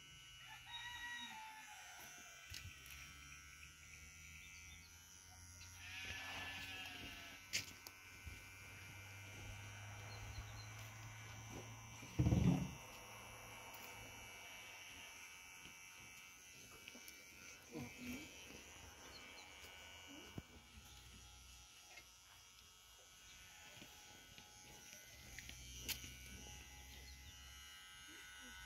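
Electric hair clippers buzzing steadily while cutting a boy's hair short. A goat bleats once about six seconds in, and there is a brief loud thump around twelve seconds in.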